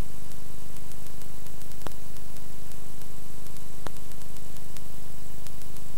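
Steady hiss and low hum of an analogue TV recording with no programme sound, broken by two clicks about two seconds apart.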